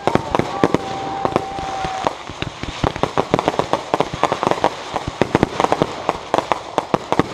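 Aerial fireworks display: shells launching and bursting in a rapid volley of sharp bangs and crackles, growing denser from about two and a half seconds in. A steady whistle sounds over the first two seconds.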